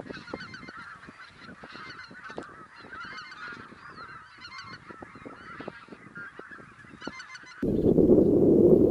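A flock of wild geese calling overhead: many short, overlapping honking calls with no pause between them. Near the end a loud, low rushing noise cuts in suddenly and drowns them out.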